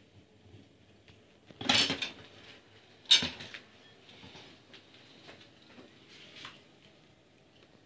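Dishes clattering in a stainless steel sink as a raccoon handles them: two loud clatters, about one and a half and three seconds in, with faint scattered clinks in between and after.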